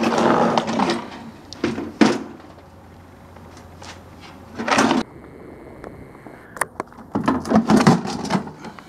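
A scrap microwave oven being handled on concrete: irregular knocks and rattles from its loose casing and parts, with a sharp knock about two seconds in and a run of clattering near the end.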